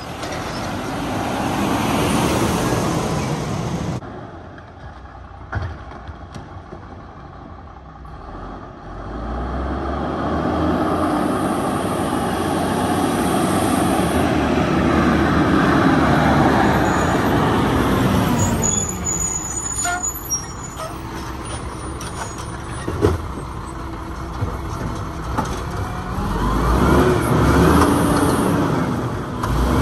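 Diesel garbage truck engine revving hard over several long pulls, the pitch climbing and dropping as the truck drives up. Near the end the engine revs up again while the automated side-loader arm lifts a cart.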